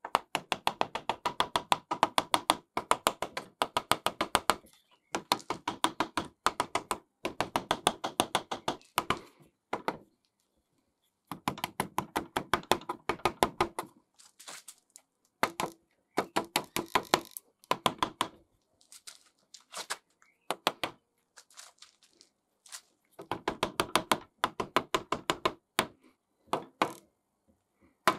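Rubber mallet rapidly tapping an antique tenon saw's brass back and wooden handle into place while the saw is held in a vise. The taps come in quick runs of a second or two with short pauses, and the steel saw blade rings under them.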